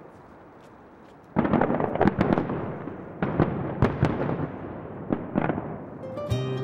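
Aerial fireworks bursting overhead: a sudden run of bangs and crackles starts about a second and a half in and keeps going, with music coming in near the end.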